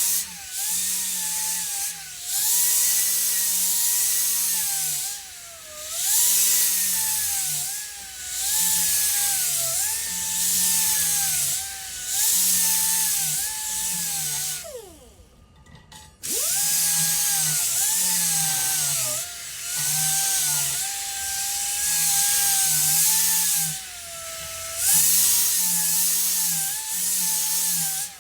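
Air-powered rotary sander whining at high speed with a loud hiss while sanding rust off a bicycle disc-brake rotor; its pitch sags over and over as it is pressed onto the disc. About halfway through it is let go and spins down, then starts up again a second later.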